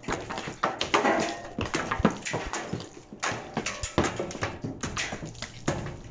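Sledgehammer blows on a reinforced concrete slab, landing irregularly about once a second, with smaller clatters of broken concrete between them.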